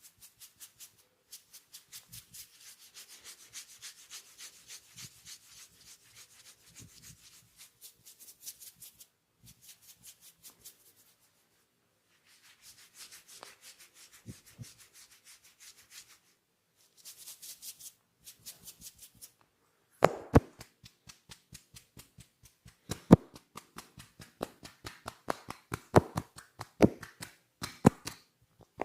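Hands rubbing briskly over hair and scalp in a head massage, in quick rhythmic strokes of about four or five a second with short pauses. About two-thirds of the way through it changes to louder, sharper rhythmic hand strikes, as in massage tapping.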